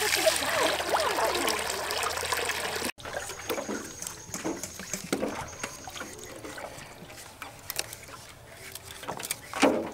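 A stream of water pouring into a metal basin over raw pork skin. About three seconds in it cuts to quieter knife scrapes and small water splashes as green bananas are peeled and cut in a basin of water.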